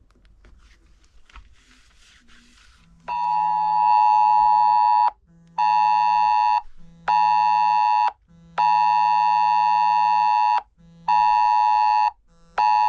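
UK government Emergency Alerts test tone sounding from a smartphone. It is a loud, steady alarm tone near 1 kHz that starts about three seconds in. It pulses in a repeating long-short-short pattern: about two seconds on, then one second, then one second.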